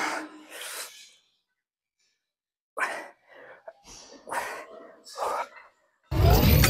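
A lifter's forceful breaths, a series of short sharp exhalations about half a second to a second apart as he strains through reverse curls with a plate-loaded EZ curl bar. Near the end comes a sudden loud clatter as the loaded bar's iron plates are set down.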